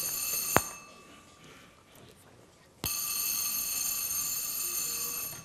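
Telephone bell ringing in two rings: the first stops about half a second in with a sharp click, and after a gap of about two seconds a second ring runs for about two and a half seconds.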